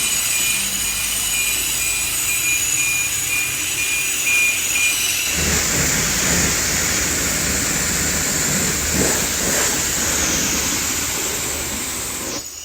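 A loud, steady rushing mechanical noise that grows heavier and more rumbling about five seconds in, then cuts off suddenly at the end.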